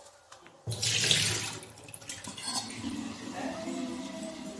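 Water rushing and splashing in a stainless steel kitchen sink as raw potatoes are washed in a steel bowl: a loud rush of water starts suddenly under a second in and lasts about a second, then quieter splashing.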